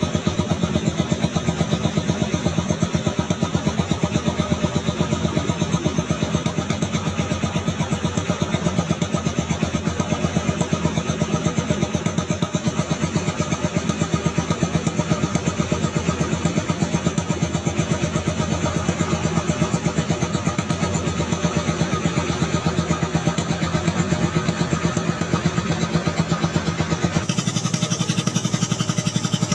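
Small boat's engine running steadily under way, a fast, even putter with a constant pitch; its tone changes abruptly near the end.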